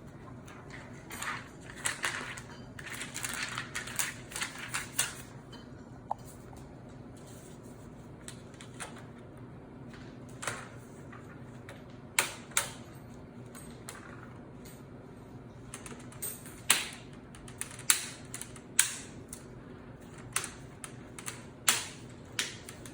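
Protective plastic film crinkling as it is peeled off a new laptop LCD panel. Then a series of sharp, separate plastic clicks as the screen bezel is pressed into place around the panel.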